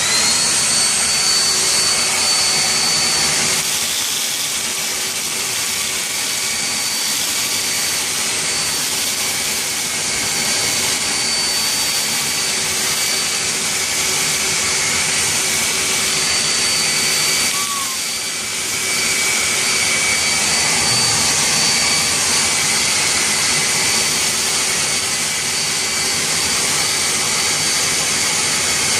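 A 16-gallon wet/dry shop vac running with a steady high whine, sucking dirt, sand and clay out of an old cash register. It starts suddenly, and its sound dips briefly about two-thirds of the way through.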